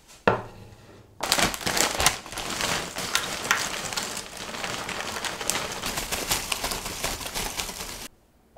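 A potato chip bag crinkling and crackling as it is handled: a single sharp snap at the start, then dense crinkling from about a second in that stops abruptly near the end.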